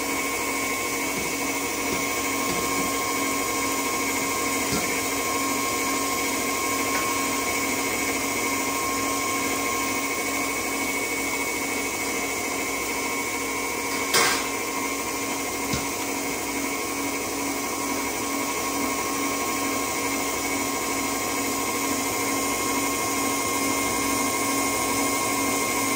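A small electric motor runs at a steady speed with a constant whine throughout, and there is a single short knock about fourteen seconds in.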